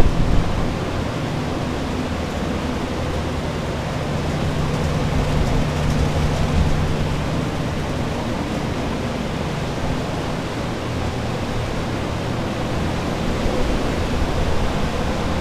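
Steady airy rush and low motor hum of restoration drying equipment, floor air movers and a dehumidifier, running to dry out a flooded building. The hum swells a little around the middle and again near the end. A short low bump comes right at the start.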